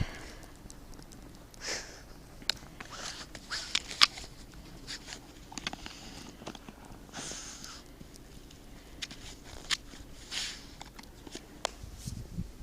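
Irregular crunching steps in deep snow, a short gritty crunch every second or two with a few light clicks between.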